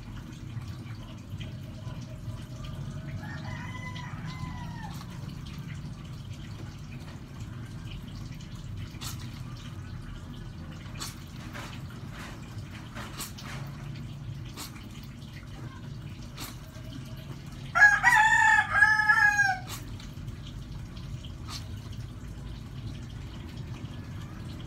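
A rooster crows once, loudly, about eighteen seconds in, after a fainter crow near the start. Between the crows there are scattered drips and small splashes of water.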